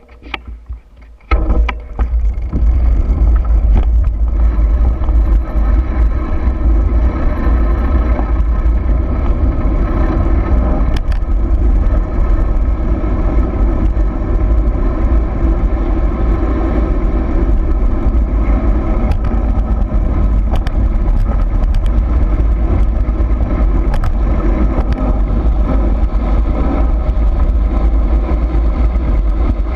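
Heavy wind buffeting on the microphone during a fast downhill run on a dirt trail, with scattered clicks and rattles from the ride. It starts suddenly about a second in and stays loud and steady.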